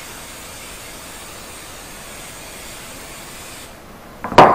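Olive oil pump spray bottle misting a glass baking dish: a steady hiss that stops a little before the end, followed by a sharp knock.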